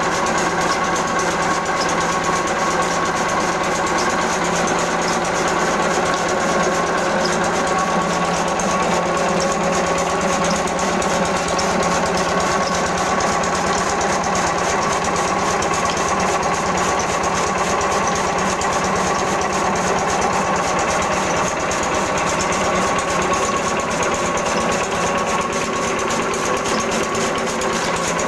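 Small stationary diesel engine running steadily with a fast, even beat, belt-driving a flywheel chaff cutter as it chops green fodder.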